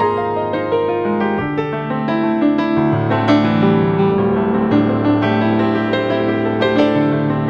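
Gentle background piano music: sustained chords with a slow melody on top.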